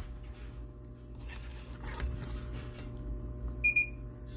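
Two short, high electronic beeps in quick succession near the end, over a steady low electrical hum and faint handling rubs.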